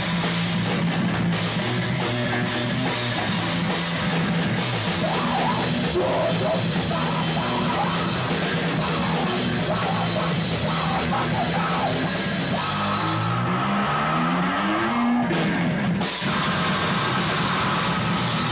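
Live rock band playing electric guitar and drum kit. About two-thirds of the way in, the low notes slide upward in pitch, followed by a momentary break before the band carries on.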